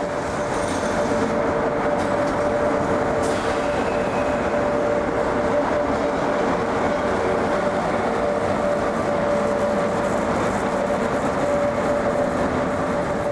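Locomotive-hauled train passing close along a station track, with a steady rumble of wheels on rails and two steady high tones held throughout.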